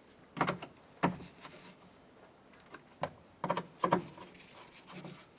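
Five or six separate, irregularly spaced knocks and clicks of hand tools and parts against a car door's inner shell as the door module's fasteners are snugged down.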